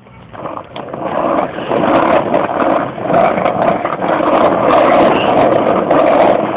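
Skateboard wheels rolling over street pavement: a loud, steady rumble, with scattered small clicks.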